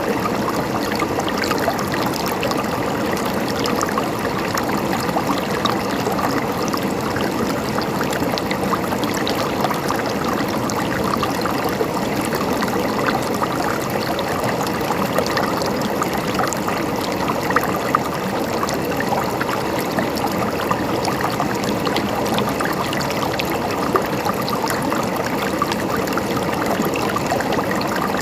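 Water running and trickling in a steady, gurgling flow, like a small stream or fountain splashing over stones.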